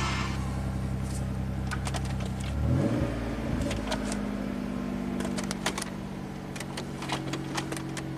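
1991 Ford Probe's 3.0-litre Vulcan V6 running steadily. About three seconds in it revs up briefly, then settles to a steady note at a different pitch. Scattered light clicks run throughout.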